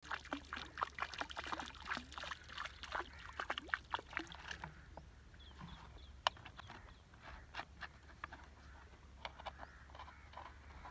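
Water splashing and sloshing around a wading person's legs, busy with many small splashes for the first few seconds, then thinning to occasional light splashes and drips.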